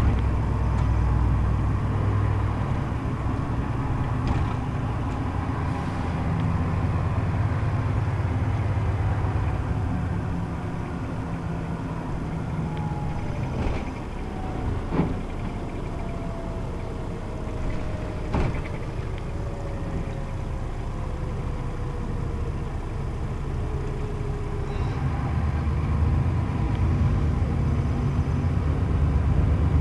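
Interior of a Scania K114 IB coach at motorway speed: its 11-litre inline-six diesel drones steadily under tyre and road noise. A faint whine slides slowly down in pitch through the middle, and there are a couple of sharp clicks or rattles.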